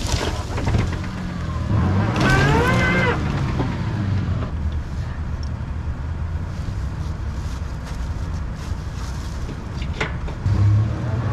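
Truck-mounted 12,000 lb electric winch pulling a boat trailer on its steel cable: a steady low mechanical hum, with a louder, wavering higher-pitched sound about two seconds in.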